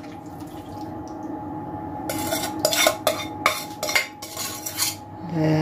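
Spatula scraping and knocking against a stainless-steel saucepan as thick marinated chicken is emptied out, giving a run of clinks and scrapes from about two seconds in. A steady hum runs underneath.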